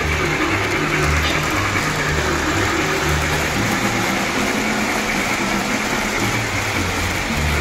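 Model train running along the layout's track, a steady rolling rumble with a low throb that comes and goes about every half second to second.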